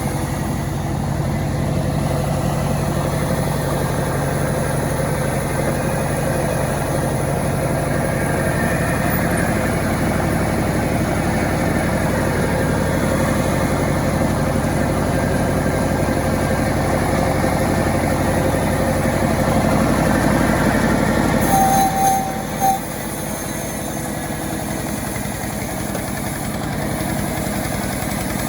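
Small petrol engine of a homemade chainsaw running steadily. About three-quarters of the way through it gets a little louder, then drops abruptly to a quieter, even run, as when the throttle is released and the engine falls back to idle.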